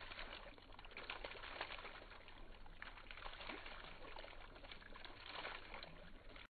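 Water bubbling up from the top of a drilled stone fountain and trickling and splashing down the rock's face, with a steady, faint watery patter.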